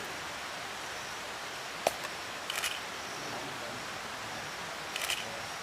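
A few short camera shutter clicks, about two seconds in and again near the end, over a steady outdoor hiss.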